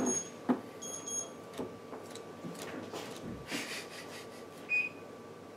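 Quiet handling of sleeved Magic cards on a table: a few soft clicks and a brief rustle of cards being sorted. A few short high tones sound near the start and once more near the end.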